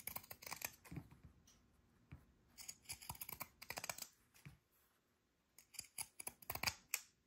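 Scalloped pinking shears cutting along a fabric seam: quick runs of faint snips, in about three bursts with short pauses between.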